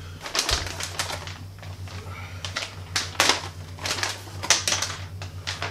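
Clear plastic packaging wrap being pulled and handled, crinkling and rustling in irregular crackly bursts, over a steady low hum.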